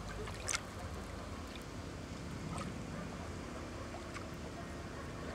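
Lake water lapping and splashing close to the water's surface, with one short sharp splash about half a second in and a few fainter splashes after.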